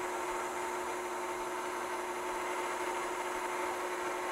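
KitchenAid stand mixer running steadily, its dough hook kneading pie-crust dough: an even motor hum with one constant tone.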